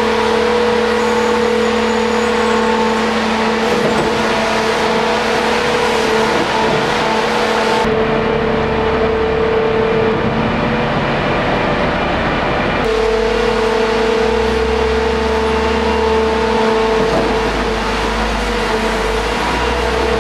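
ITC 312 H1 tunnel heading machine running under load with a steady humming whine. For about five seconds in the middle the hum fades into a rougher, duller machine noise, then returns.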